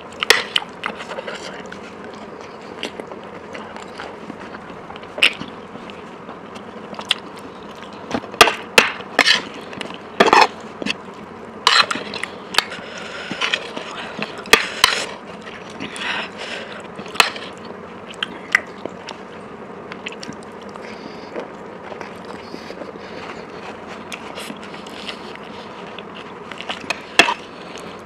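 Close-miked eating sounds: scattered sharp mouth clicks and smacks of chewing spicy fried food, busiest in the middle, over a steady hiss.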